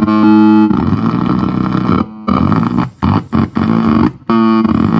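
Spinning LED noise wand, its flashing lights picked up by a receiver and played through an amp with no effects: a loud, buzzy pitched drone that keeps shifting in texture and stutters, cutting out briefly several times in the middle.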